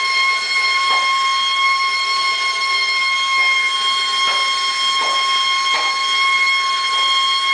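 A steady high-pitched whistling tone with overtones, unchanging in pitch and level, with a few faint short swishes underneath.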